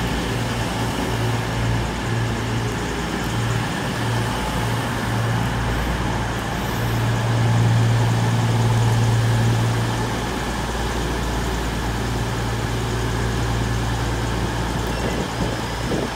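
Class 221 Super Voyager diesel-electric multiple unit's underfloor Cummins diesel engines running with a steady low drone, growing louder for a few seconds about halfway through.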